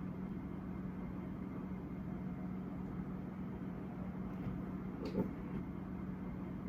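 Steady low electrical hum over a bed of background noise, with one faint click about five seconds in.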